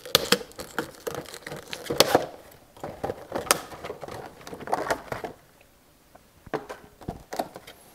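Packaging being torn open and crinkled by hand to get at a new chainsaw fuel filter: irregular crackling and rustling with scattered sharp clicks, easing off briefly a little past halfway.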